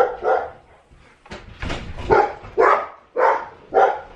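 Rottweiler barking, a string of short barks about every half second.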